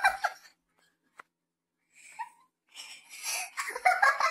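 A woman laughing excitedly in short bursts, with a louder burst near the end.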